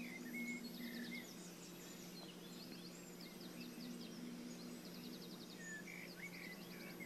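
Faint recorded forest soundscape: songbirds chirping and trilling in short, rapid phrases over a low steady hum.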